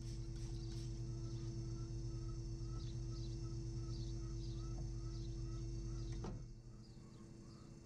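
A steady machine hum that stops about six seconds in. Behind it are faint, regular chirps, a few each second.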